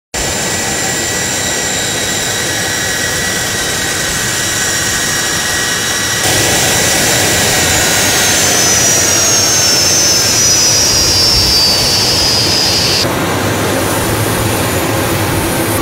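Turbofan engines of a C-17 Globemaster III jet transport running on the ground: a loud, steady rush with a high whine over it. From about eight seconds in the whine slides down in pitch, and the sound changes abruptly twice, at about six and thirteen seconds.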